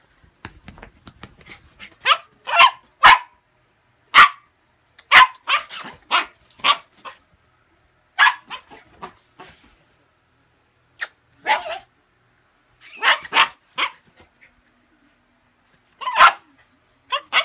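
Husky puppy barking in short, sharp barks that come in quick clusters of a few at a time, with pauses of a second or two between clusters. Soft rustling is heard near the start, before the first barks.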